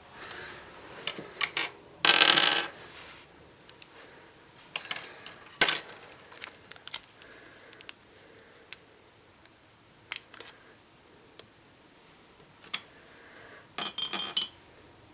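Hard plastic Rubik's Cube pieces clicking and clinking against a glass jar as they are dropped in and pushed into place. The clicks are scattered, with a short rattle about two seconds in and a quick cluster of clinks near the end.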